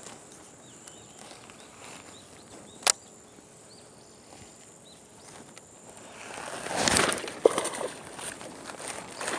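Quiet open-air ambience with faint bird chirps and one sharp click about three seconds in, then, about six seconds in, a couple of seconds of water splashing and sloshing close by.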